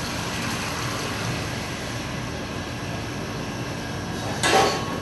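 Steady low background rumble of a commercial kitchen, with one short metallic clatter about four and a half seconds in as a steel sieve knocks against the steel pan and bowl while a sauce is strained.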